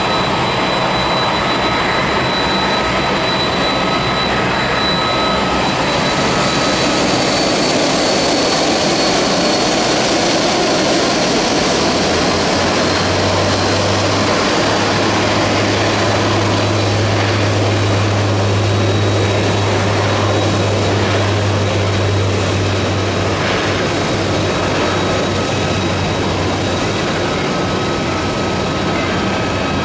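Airliner engines running at an airport, a continuous rush with a steady high whine. About twelve seconds in, a low steady drone joins it for some ten seconds: the propellers of a Dash 8-400 turboprop taxiing.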